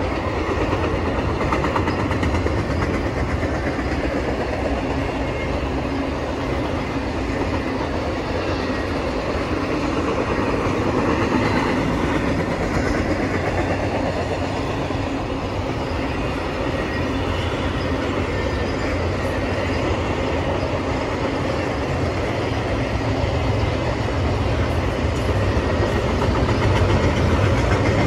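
A train rolling by on the rails: a steady rumble and rattle of wheels and cars, slightly louder near the end.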